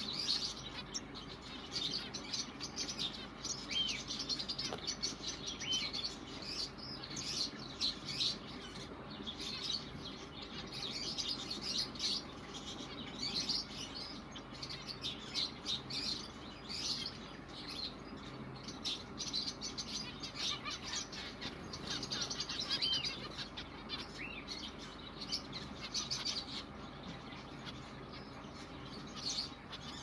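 A colony of zebra finches in an aviary chirping, with many short, high-pitched calls overlapping one another without a break.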